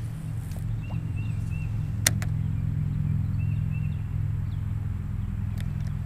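A steady low rumble with one sharp click about two seconds in, and a few faint high chirps of small birds.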